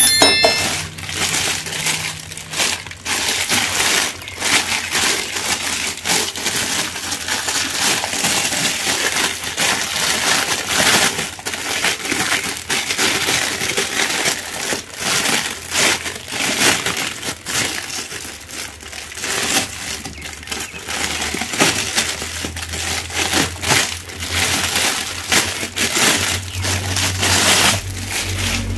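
Thin clear plastic wrapping crinkling and rustling irregularly as hands unwrap and handle plastic masks sealed inside it.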